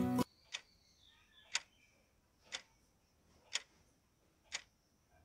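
Clock-tick countdown sound effect, one sharp tick each second, marking the last seconds of a timer running down. Guitar music cuts off just before the first tick.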